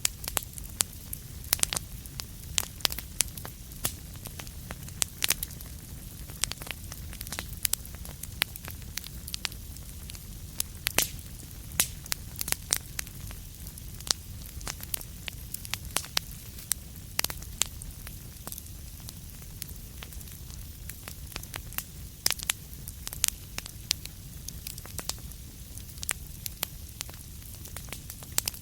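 Fireplace fire crackling: frequent, irregular sharp pops and snaps over a steady low rumble.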